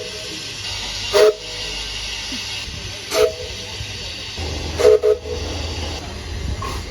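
A locomotive sounding short chord blasts on its horn: two single toots about two seconds apart, then two quick toots together near the end, over a steady hiss.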